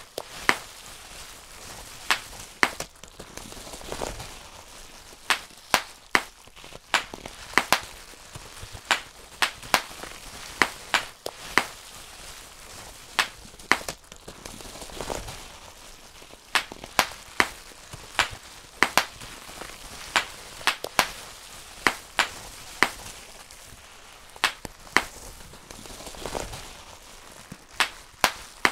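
Bubble wrap being popped, one sharp pop after another at irregular intervals, often two or three in quick succession, over a steady low rustle of the plastic sheet.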